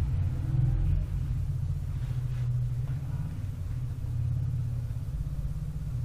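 A steady low rumble, its sound lying almost entirely in the deep bass.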